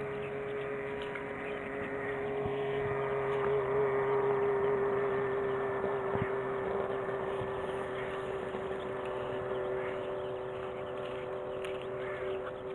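A steady motor drone holding one pitch, growing a little louder a few seconds in and easing off again.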